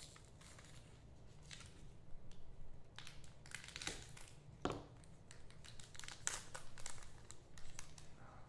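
Trading card pack wrapper being carefully torn open and crinkled by hand, giving scattered soft crackles, with one sharp click a little under five seconds in.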